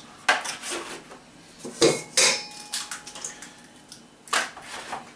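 Eggs being cracked on the rim of a stainless steel mixing bowl: a few sharp taps of shell against metal, a second or two apart.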